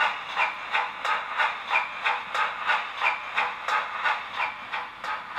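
Steam-locomotive chuffs from the sound decoder's small speaker in an OO gauge GWR 14xx auto tank model as it runs, an even beat of about three chuffs a second, thin and without bass.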